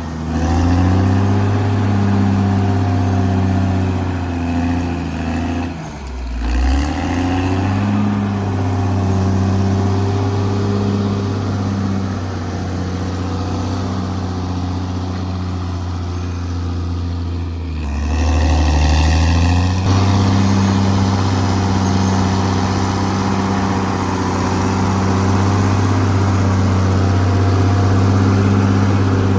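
Caterpillar D6R XL bulldozer's diesel engine running steadily under work. Its note drops and picks back up about six seconds in, and again around eighteen to twenty seconds.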